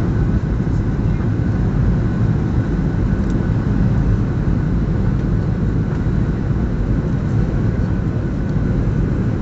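Steady low rumble of cabin noise inside a Boeing 737-800 in flight: its CFM56 engines and the airflow over the fuselage, with a faint steady high whine above it.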